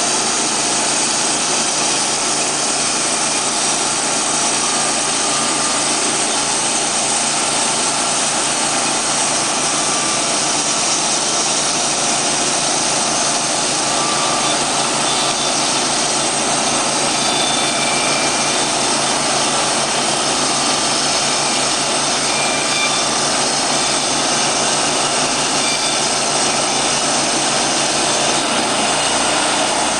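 Timberking B-20 portable band sawmill running steadily: its 27 hp Kohler gasoline engine drives the band saw blade.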